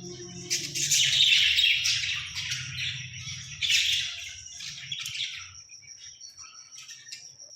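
Pet green parrot giving a run of harsh, loud squawks and chirps, loudest about a second in and again near four seconds, fading out after about five seconds.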